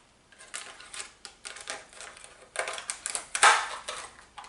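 A small boxed earbuds package being opened and handled: a run of irregular clicks, taps and rustles of packaging, loudest about three and a half seconds in.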